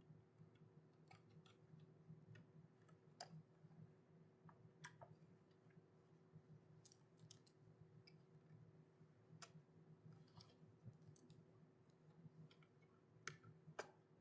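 Faint, irregular clicks of small plastic Lego pieces being handled and pressed together, over a low steady hum.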